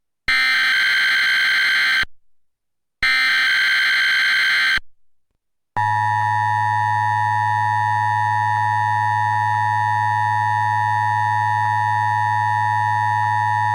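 Emergency Alert System monthly test signal. First come two SAME header data bursts, each a shrill digital warble about two seconds long with about a second of silence between them. About six seconds in, the steady two-tone EAS attention signal starts and holds for about eight seconds.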